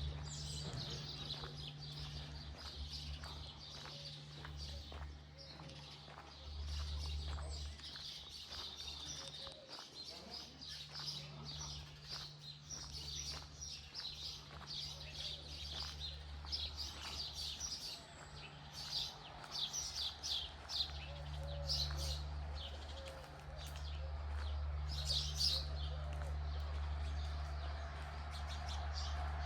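Small birds chirping and singing, with quick high calls that grow more frequent in the second half, over a steady low rumble.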